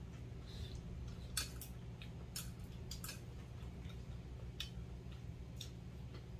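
Metal chopsticks and spoons clinking against stainless-steel bowls and dishes during a meal: several sharp, separate clinks, the loudest about a second and a half in, over a low steady hum.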